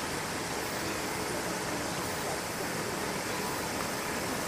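Steady, even background noise like a broad hiss, with no distinct sound standing out.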